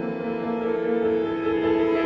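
Contemporary chamber ensemble playing: several instruments hold overlapping sustained notes that shift pitch now and then, blending into one composite sound.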